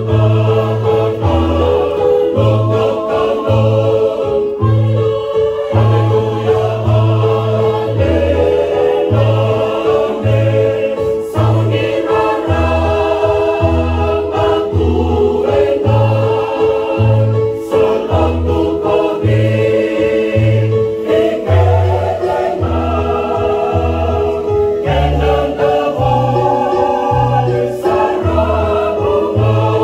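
Fijian Methodist church choir of men and women singing a hymn in parts. Sustained chords change every second or so, over a bass part that moves in a steady, repeated rhythm.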